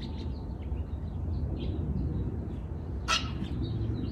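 Tarot cards being handled, with a brief swish about three seconds in as a card is slid off the deck. Under it runs a steady low room rumble with faint high chirps in the background.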